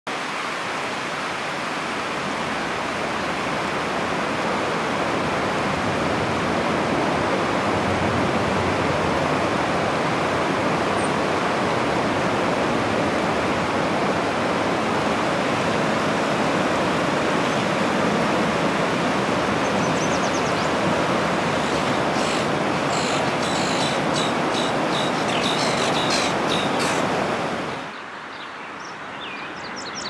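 Steady rush of flowing river water, loud and even. High bird chirps come in over it in its last several seconds. The rush cuts off suddenly near the end, leaving quieter bird chirps.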